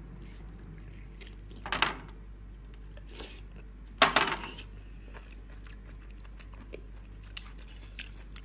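A person slurping and chewing blanched geoduck meat straight from the shell. There are two loud, wet slurps, one just under two seconds in and one about four seconds in, with small chewing clicks between them.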